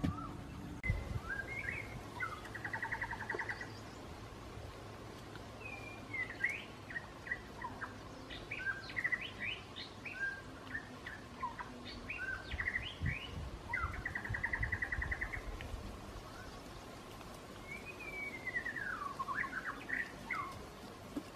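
Small birds calling: scattered chirps, rising and falling whistled notes and two fast buzzy trills, one early and one after the middle. Soft low thuds of hands digging into soil come now and then.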